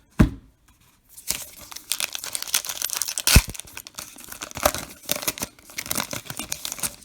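Wrapper of a 2021 Topps Allen & Ginter baseball card pack being torn open and crinkled, a dense crackling tear with one sharp crack in the middle. A single thump comes just before it.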